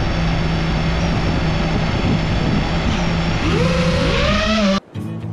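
FPV racing quadcopter's brushless motors spinning right by its onboard camera: a steady whine over a loud rush, with rising whines near the end as the throttle comes up. The sound cuts off abruptly and music starts just before the end.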